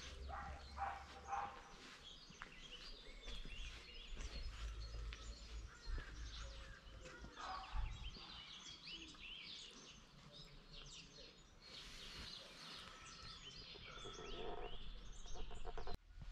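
Small birds chirping and singing in many short, quick calls, with a low rumble underneath at times.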